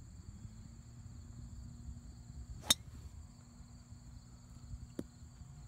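Golf driver striking a ball off the tee: one sharp crack about halfway through, over a faint, steady high-pitched drone.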